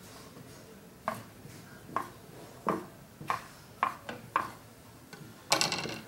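Kitchen knife slicing a block of mozzarella cheese on a wooden cutting board, the blade knocking the board six times, a little over half a second apart. Near the end the knife is laid down on the stainless steel sink edge with a ringing metallic clatter, the loudest sound.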